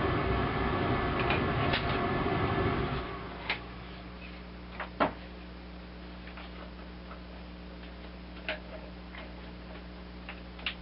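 A steady, noisy hum that cuts off suddenly about three seconds in, followed by a handful of sharp, scattered clicks and knocks from hand tools and old roof boards being handled while a bird feeder roof is taken apart.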